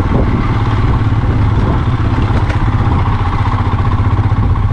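Motorcycle under way, its engine running at a steady pace with a constant low drone.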